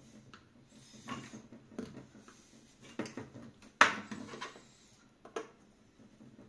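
Small screwdriver scraping and clicking at a stubborn screw in a small wooden block, in short irregular strokes. One sharper clack about four seconds in as a hand tool is set down on the cutting mat.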